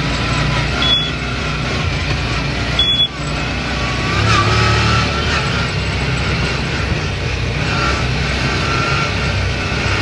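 Off-road buggy's engine running steadily as it drives along a bumpy dirt track. Two brief high-pitched beeps come about a second and three seconds in.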